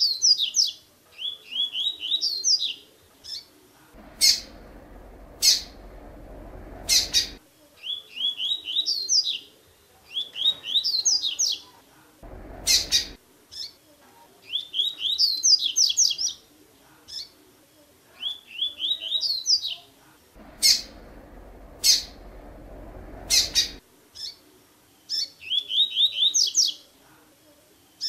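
Double-collared seedeater (coleiro) singing the 'tui-tui' song type: short phrases of quick, repeated high notes, each a second or two long, repeated after brief pauses. A few sharp clicks sound between phrases.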